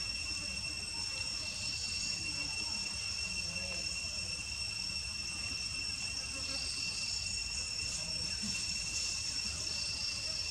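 Insects droning steadily, holding several unbroken high-pitched tones.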